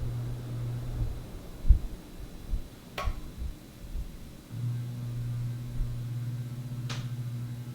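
Regency Marquis ceiling fan motor running with a steady low hum, which the owner blames on the flush mount. The hum drops away about a second in and comes back about four and a half seconds in, with a few low thuds in the gap and two sharp clicks, one near the middle and one near the end.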